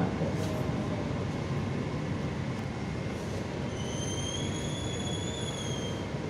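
Metro train cabin noise as the train slows into a station, with a high-pitched squeal for about two seconds near the end as it comes to a stop.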